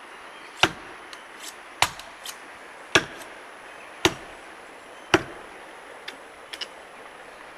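Axe chopping into the trunk of a large tree: five heavy strikes about a second apart, which stop about five seconds in.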